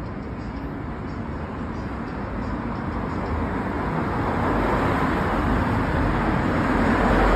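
Road traffic noise in a tunnel, a vehicle's noise building steadily louder as it approaches.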